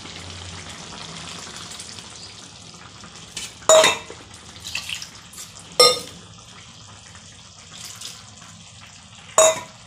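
Kadhi simmering in a kadhai on a gas burner, a steady low bubbling and sizzling, with three ringing metal clanks of a ladle against the pan a couple of seconds apart.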